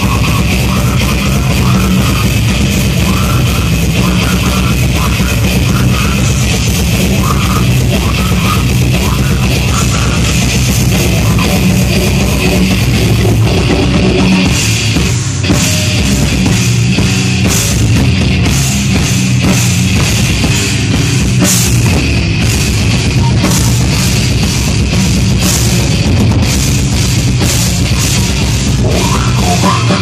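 Heavy metal band playing live at full volume: distorted electric guitars over a drum kit. About halfway through the cymbal hits become faster and busier.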